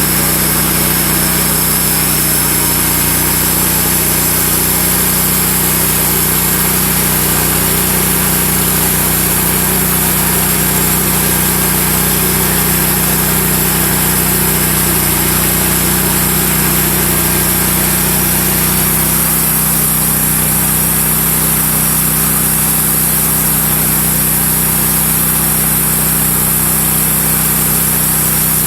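Wood-Mizer LX150 bandsaw sawmill running steadily under power, its band blade cutting through a large red oak log. The low hum shifts slightly about two-thirds of the way through.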